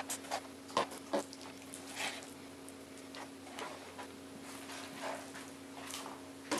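Large kitchen knife slicing raw chicken meat on a cutting board, the blade tapping and knocking against the board in a few scattered sharp clicks, over a faint steady hum.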